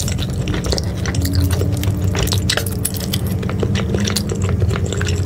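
Close-miked chewing of saucy noodles, a quick run of small wet clicks and smacks from the mouth.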